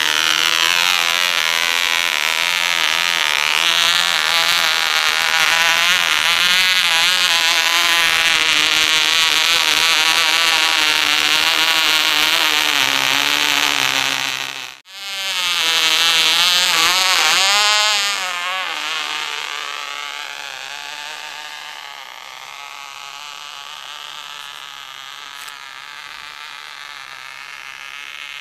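Vintage OK Cub .049 two-stroke glow engine running flat out on a model glider's nose, a high buzz whose pitch wavers. It breaks off for an instant about halfway through, comes back loud, then fades over a few seconds as the glider flies away. The engine is running rich, and runs better with the nose held up.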